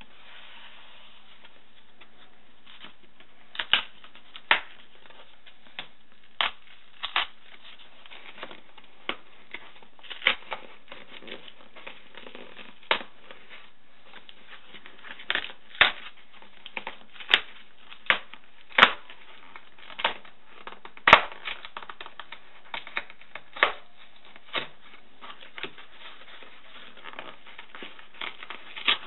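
Packaging being handled and opened by hand: irregular sharp crackles, taps and rustles, some much louder than others, over a faint steady hiss.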